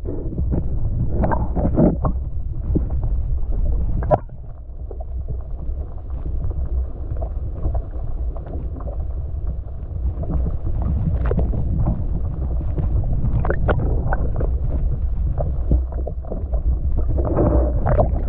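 Water heard with the microphone submerged: a steady, muffled low rumble with scattered small knocks and clicks. Near the end the water sloshes and splashes as the camera comes up to the surface.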